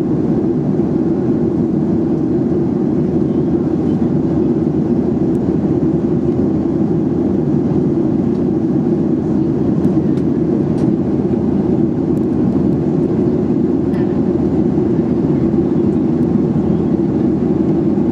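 Steady, even cabin noise of a Boeing 737-800 in flight: engine hum and airflow heard from a window seat near the rear, with a few faint small ticks.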